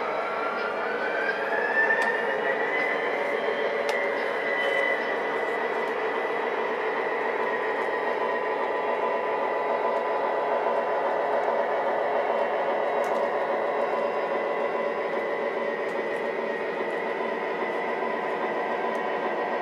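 O-gauge model train running on three-rail track: a steady motor whine over rolling wheel noise. The whine rises in pitch over the first two or three seconds as the train picks up speed, then holds steady.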